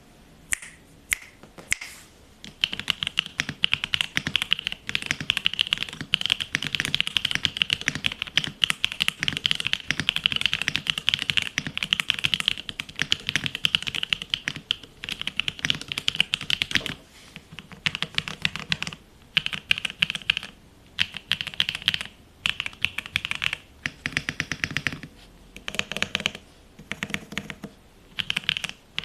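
Typing on a Qwertykeys Neo65 mechanical keyboard with WS Yellow linear switches, a POM plate, case and plate foam, and PBT keycaps. A few single keystrokes give way to a long run of fast typing, which breaks into shorter bursts with brief pauses in the second half.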